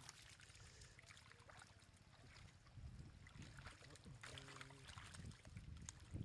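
Faint splashing and sloshing of shallow muddy water as stranded fish flap about, with scattered small splashes and ticks.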